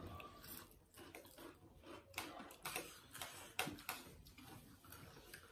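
Faint eating sounds: irregular light clicks of forks against plates, with chewing and slurping of noodles.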